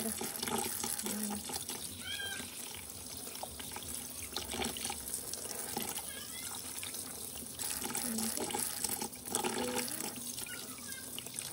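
Tap water running steadily into a stainless steel kitchen sink as cleaned pinfish are rinsed and handled.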